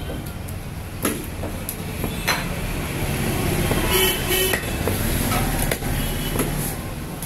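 Steady street traffic rumble, with a vehicle horn tooting twice in quick succession about four seconds in. A couple of sharp knocks come from the cleaver striking the fish on the cutting block.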